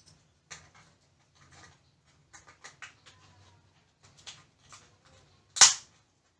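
Small clicks, taps and scrapes of hands handling a laptop RAM module and its memory slot clips, with one much louder sharp click near the end.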